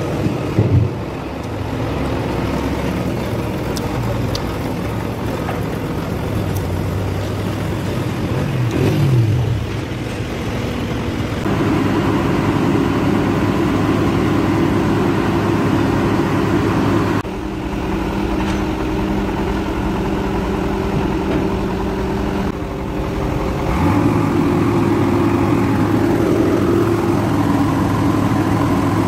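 Heavy-equipment diesel engines running steadily, the engine note jumping to a different pitch and level several times. There is a brief rise in revs about nine seconds in and a couple of loud clunks near the start.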